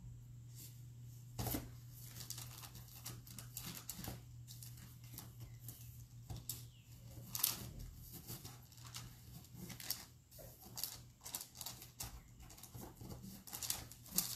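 Parchment paper rustling and crinkling under the hands as Sculpey clay is pressed flat beneath it, in a run of irregular short crackles, with a steady low hum underneath.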